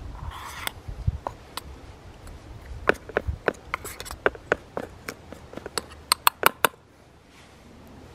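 Utensils and containers knocking while biscuit ingredients are measured and mixed: a brief rustle, then a run of sharp, irregular clicks and taps, the loudest near the end.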